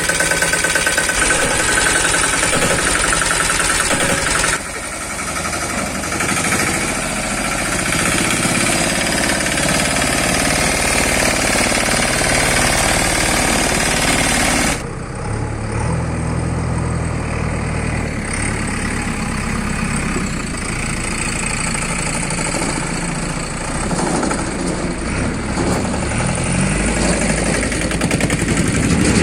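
Engines of heavy earth-moving machinery running, typical of a backhoe loader and a tractor at work. The sound changes abruptly twice, about four and a half seconds in and again about fifteen seconds in, to a lower, steadier engine note.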